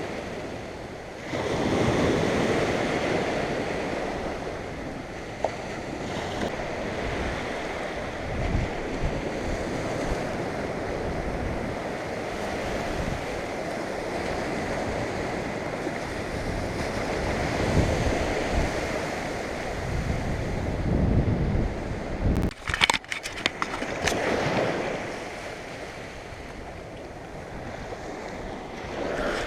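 Surf washing onto the beach in steady waves, with wind buffeting the microphone in low rumbles. A few sharp clicks or knocks come about three-quarters of the way through.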